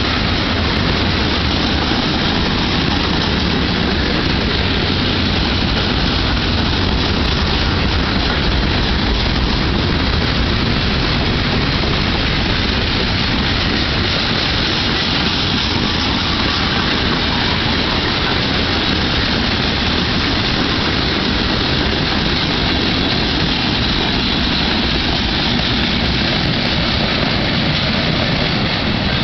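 Tank cars and covered hoppers of a mixed freight train rolling past, a steady loud rumble of steel wheels on rail.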